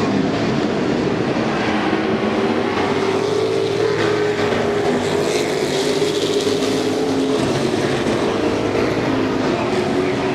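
Engines of several short-track race trucks running together as the pack circles the track: a steady, loud drone of overlapping engine notes that rise and fall slightly.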